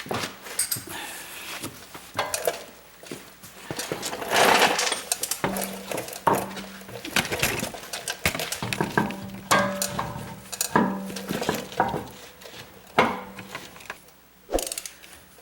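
Metal tools and parts clinking and clanking in an irregular string of sharp knocks and clinks.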